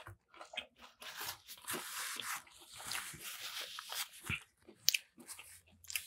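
Person chewing a bite of a breaded fried chicken sandwich. Dense crunching starts about a second in and runs for about three seconds, followed by scattered softer mouth clicks and smacks.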